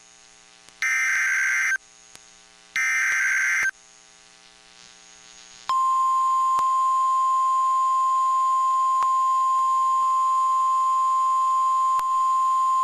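NOAA Weather Radio alert signal: two one-second bursts of SAME digital header tones, a second apart. About six seconds in, the steady 1050 Hz warning alarm tone starts and holds, signalling that a warning message follows.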